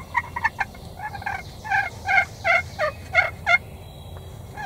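Turkey yelping: a run of about a dozen short notes at about three to four a second, louder in the second half, the last ones dipping lower in pitch before stopping.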